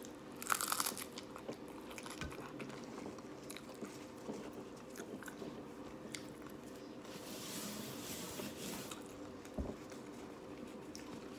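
Biting into a crunchy hard-shell corn taco about half a second in, followed by chewing with small crunches and mouth clicks. From about seven to nine seconds a soft rustle as a paper napkin is used, over a faint steady hum.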